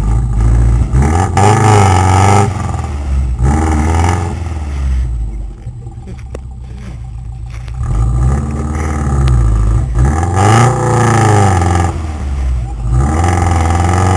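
Subaru Brumby's flat-four engine revving hard in repeated bursts while the ute churns through deep mud, its wheels spinning and throwing mud. The revs climb and fall several times, with a quieter lull in the middle.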